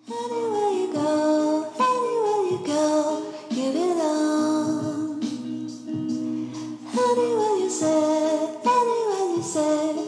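Background music starting suddenly after silence: a melodic line of falling phrases, about one a second, over steady held notes.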